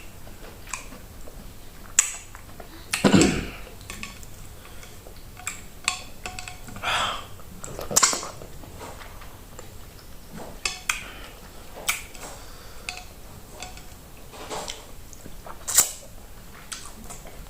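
Close-up eating sounds of fufu with okra soup: scattered wet mouth clicks and smacks, a few longer slurps, and occasional light clinks of dishes.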